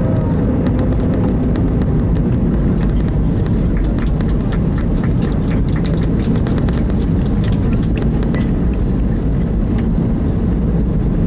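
Airbus A320neo cabin noise while rolling on the ground just after landing: a steady, loud low rumble from the wheels and engines. Many quick clicks and rattles come through it, thickest in the middle.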